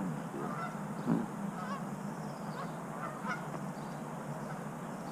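Geese honking, several calls, the loudest about a second in.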